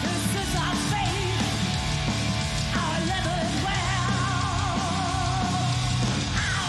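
Heavy metal music: a band playing with a singer holding long notes with vibrato, sliding into new notes twice.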